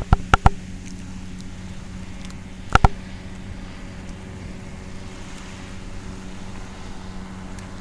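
A steady engine drone at a constant pitch, with a few sharp knocks in the first half second and another near three seconds in.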